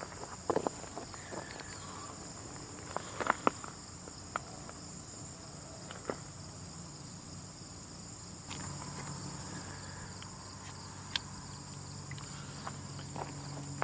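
Ant-colony sound effect: a steady high insect-like buzz with scattered small clicks and crackles, a few louder ticks bunched about half a second and three seconds in. A low hum joins about halfway through.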